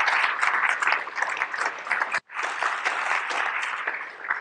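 Audience applauding: a dense patter of many hands clapping. It cuts out for an instant about halfway through, then fades toward the end.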